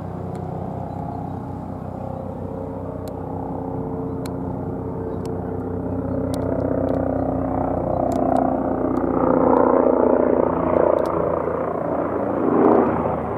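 Eurocopter EC145 twin-turbine helicopter flying overhead: a steady drone of main rotor and turbines that grows louder as it passes close, loudest about two-thirds of the way through.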